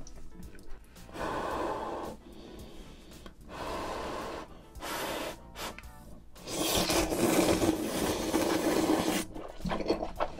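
Close-up slurping of jjamppong noodles in several hissing pulls. The longest and loudest runs for nearly three seconds starting about six and a half seconds in.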